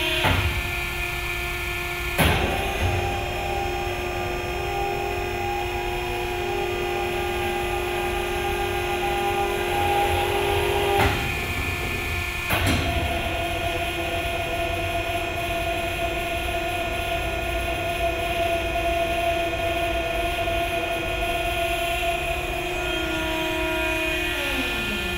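Hydraulic deblocking rams of a bulk bag conditioner working: two hydraulic cylinders drive the conditioning platens in and out against a bulk bag, with a steady machine whine and hum. Sharp clunks come about two seconds in and twice around eleven to thirteen seconds in, where the whine shifts in pitch, and near the end the whine slides down in pitch.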